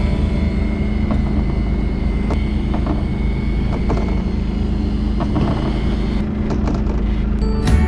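A fishing boat's engine running with a steady low drone, with scattered light clicks and knocks from on deck.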